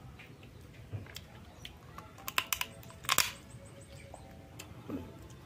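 Cooked crab shell being cracked and picked apart by hand: a run of sharp clicks and cracks, loudest a little past halfway.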